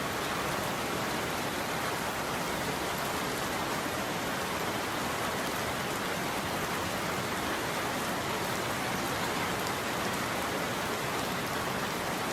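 Steady rain falling: an even, continuous hiss of drops that holds the same level throughout.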